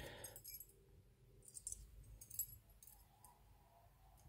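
Faint metallic clinks and light jingles of a metal wire puzzle and its ring being handled, a few brief ones about a second and a half and two and a half seconds in.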